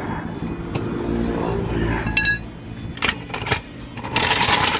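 Hydraulic trolley jack being lowered from under a car's rear hub: a low steady rumble, then a ringing metallic clink a little over two seconds in, a few knocks, and a short hissing scrape near the end.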